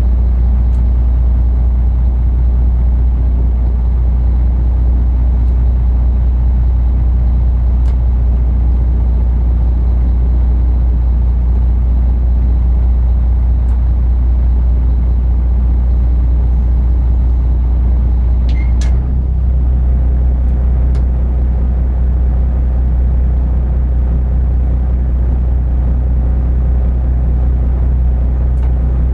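Inland cargo barge's diesel engine running steadily, a deep low rumble. A couple of clicks come about two-thirds of the way in, and just after them the engine note changes slightly.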